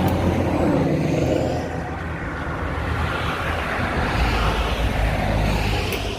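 Welding arc of a small Mig 125 MIG welder crackling and buzzing steadily as a bead is laid, with a low mains hum under the crackle.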